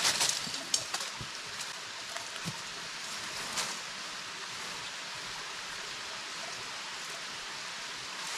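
Steady rushing of a rocky stream and small waterfall, with a few light clicks and rustles from handling the tent near the start and once more a little past three seconds in.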